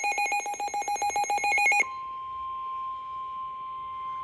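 A rapidly pulsing electronic ringing, like a telephone bell, cuts off about two seconds in and gives way to a steady single tone: the 1050 Hz warning alarm tone that NOAA Weather Radio sounds before broadcasting a National Weather Service warning.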